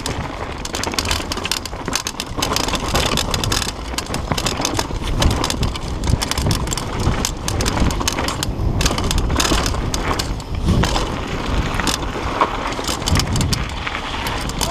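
Mountain bike ridden fast down a dirt forest trail: tyres rolling over dirt and roots, with a constant run of rattles and knocks from the bike.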